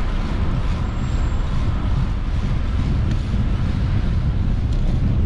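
Wind buffeting the camera's microphone with a steady low rumble while riding a bicycle, over the noise of passing street traffic.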